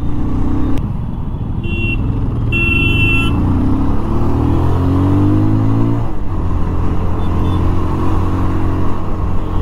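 Bajaj Pulsar 220F's single-cylinder engine pulling under acceleration, its pitch rising for about six seconds, then dropping at an upshift and running on steadily. A vehicle horn sounds twice, briefly, about two and three seconds in.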